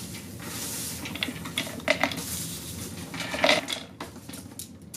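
Toasted pecan pieces poured from a dish into a plastic food processor bowl, clicking and rattling as they land, with a few louder clicks, the loudest about three and a half seconds in.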